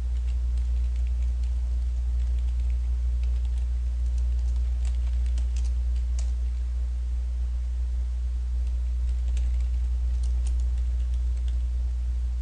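Computer keyboard typing: faint, scattered keystrokes over a steady low hum.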